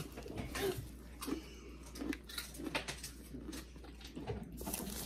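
Crunching of popped potato chips being chewed, with light crinkling of the small snack bag: a scatter of soft irregular crackles and clicks.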